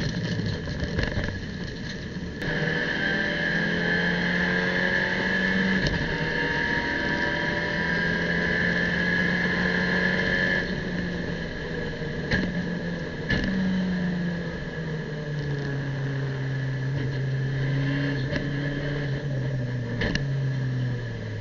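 In-car sound of an Abarth 500 race car's turbocharged four-cylinder engine at speed, pulling hard at high revs. Past the middle the engine note steps down through several downshifts as the car slows for a corner, and a few sharp clicks can be heard.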